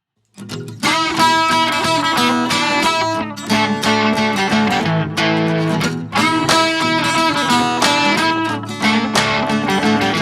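Music with strummed guitar chords, starting about half a second in.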